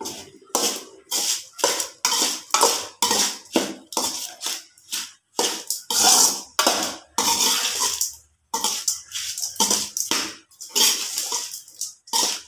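A steel spoon scraping and knocking against a metal kadai in quick repeated strokes, about two to three a second, as cooked rice is mixed and tossed with ground curry-leaf masala.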